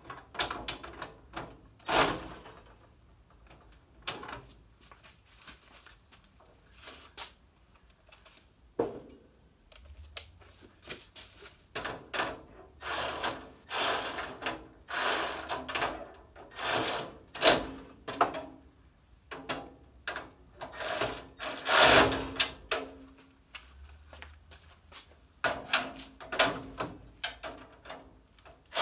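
Metal clicks, knocks and rattles from hands working on a steel rolling tool cart. They come in irregular clusters: one sharp knock about two seconds in, then a mostly quiet stretch, then dense clattering through the middle and again near the end.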